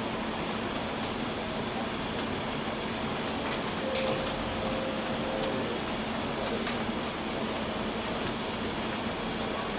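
Steady background hiss with a constant low hum, the even noise of a ventilated show barn. A short steady tone sounds about four seconds in, with a few faint clicks around it.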